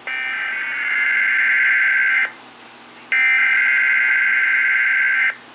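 Sage EAS ENDEC sending its SAME header: two harsh, buzzing digital data bursts of about two seconds each, separated by a pause of just under a second. These are the encoded start of a tornado watch alert.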